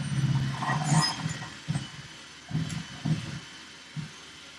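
Electric hand mixer running, its beaters whisking a chocolate mixture in a bowl. It is loudest in the first second or so, then quieter with a few short surges.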